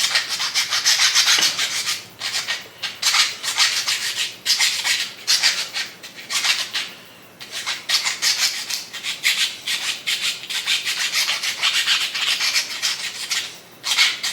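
A small round chainsaw file rasping back and forth across a turkey wing bone, cleaning it up. It goes in quick strokes, in runs of a few seconds broken by short pauses.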